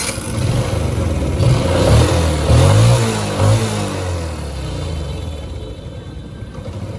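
Yamaha Exciter 135 (2010, four-speed) single-cylinder four-stroke engine running, revved up and down several times in the first four seconds, then settling back to a steady idle.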